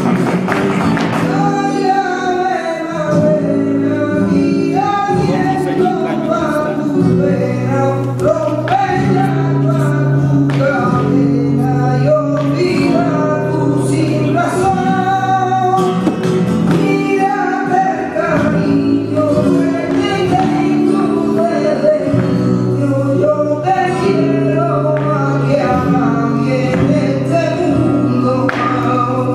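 Flamenco song: a solo voice singing a winding, ornamented line over sustained accompaniment, with sharp percussive strikes throughout.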